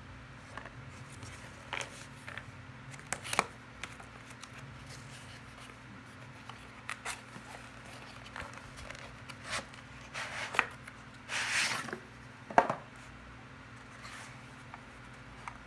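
Cardboard packaging being handled and opened by hand: scattered taps, rubs and light scuffs of card. About eleven seconds in comes a longer sliding scrape as the plastic case is drawn out of the box, followed by a single sharp knock, the loudest sound.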